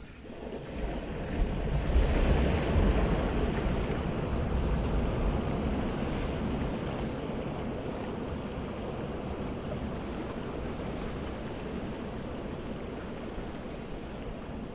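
Wind and surf: a steady rushing with a low rumble of wind on the microphone, swelling about a second in and easing slightly afterwards.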